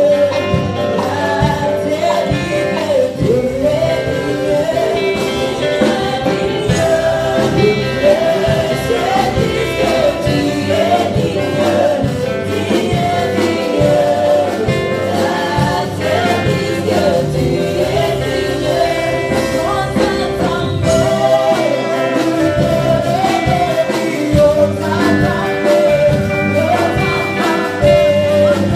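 A gospel worship song sung by a small group of singers into microphones, backed by a live band of keyboard, guitar and drums with a steady beat.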